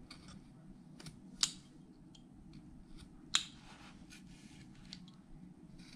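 Carving knife cutting and scoring into a wooden carving: short, sharp snicks, scattered and uneven, the two loudest about a second and a half and three and a third seconds in.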